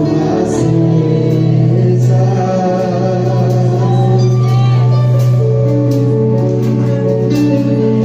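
Gospel worship music with singing over long held chords.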